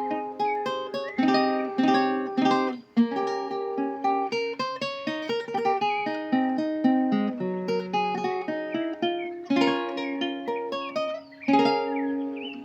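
Requinto guitar played solo: quick picked single-note melody runs, with chords strummed now and then near the start and again near the end.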